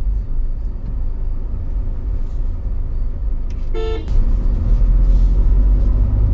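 Car's engine and road rumble heard inside the cabin while driving, growing louder about four seconds in. A brief horn toot sounds just before the rise.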